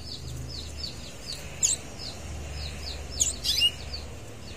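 Red local canaries calling in a breeding cage: a rapid run of short, falling high chirps, about three a second, with a few louder, sharper calls about one and a half seconds in and again around three and a half seconds in.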